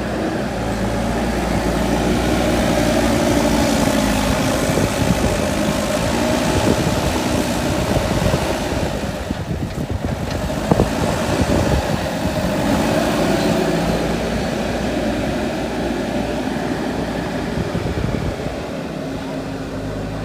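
JCB 3DX backhoe loader's diesel engine running while digging, its revs rising and falling several times, with a few knocks, the loudest about eleven seconds in.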